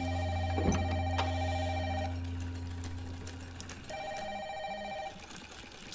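Phone ringing with a warbling two-tone ring: one ring of about two seconds, a pause, then another ring about four seconds in. A low hum sounds underneath and stops near the second ring.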